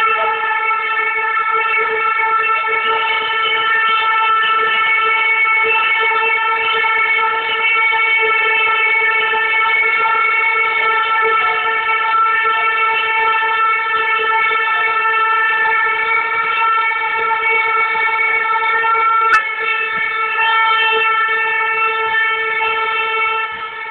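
A handheld compressed-gas air horn with a plastic trumpet, held down in one long, loud, unbroken steady blast. A single sharp click is heard a few seconds before the end.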